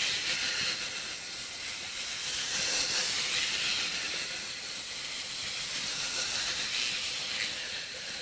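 A steady hiss of noise, mostly high-pitched, swelling and fading a little, with no distinct knocks or calls standing out.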